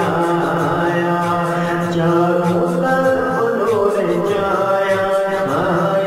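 Devotional vocal music: a voice singing a naat in long, held notes that slide between pitches, over a steady low beat.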